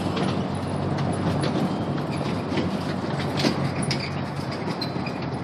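Open-sided carriages of a trackless tourist road train rolling past on paving: a steady rumble with scattered light rattles and clicks, its engine hum fading soon after the start.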